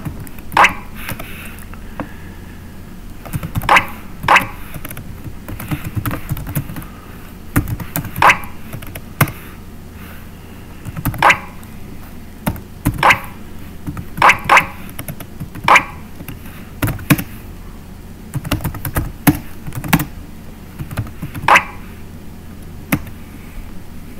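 Computer keyboard being typed on slowly: scattered single keystroke clicks, sometimes two in quick succession, with pauses between, over a low steady hum.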